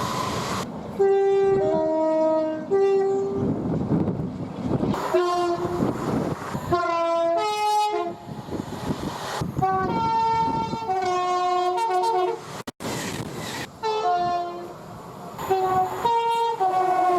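Train horns sounding two-tone, repeated high-low blasts, in a string of short clips spliced together with abrupt cuts. The running noise of passing trains fills some of the gaps between blasts.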